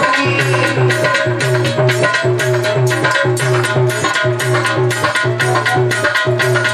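Instrumental Indian folk dance music: hand drums keep a steady, fast beat under a repeating bass line and a melody.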